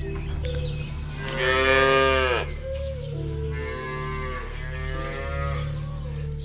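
Cattle mooing twice over a steady low music drone. The first moo is the louder and drops in pitch as it ends; the second, about three and a half seconds in, is longer and softer.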